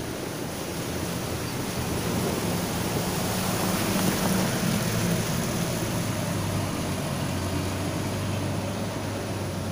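Vehicle engine running low and steady as an SUV drives slowly past on a rough, waterlogged road, over a steady hiss of street traffic and wind. The sound builds toward the middle and the low engine hum holds through the second half.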